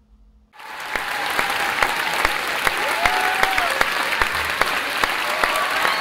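A large concert crowd applauding and cheering, fading in about half a second in, with one voice calling out about three seconds in.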